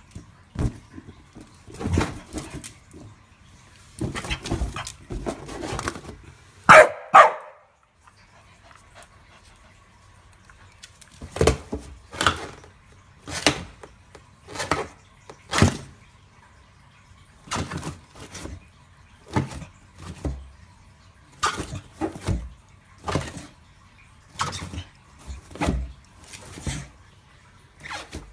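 A Staffordshire bull terrier barks twice about seven seconds in. Around that comes a long string of short knocks and squeaks, roughly one a second, as the dog noses and mouths a balloon.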